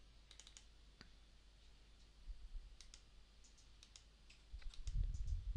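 Faint computer mouse clicks, a dozen or so scattered irregularly, as software windows are opened. A low, dull thumping comes twice, the louder one near the end.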